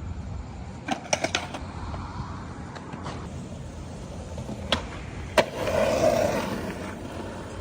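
Skateboard wheels rolling on concrete, with several clacks of the board about a second in. Two sharp cracks of the board about five seconds in, followed by a louder stretch of rolling.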